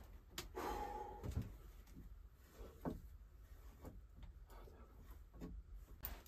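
Faint rustling of a heavy winter jacket and a few light knocks and clicks as a hat and clothes are taken off and put on a wooden shelf and hooks, with a louder rustle about half a second in.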